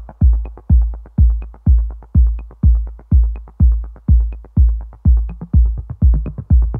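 Electronic background music: a steady deep kick drum about twice a second, with a faint higher tick on every other beat.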